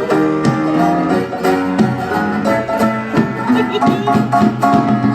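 Live country band led by a plucked banjo playing a lively instrumental, with many quick notes and chords over a steady bass line.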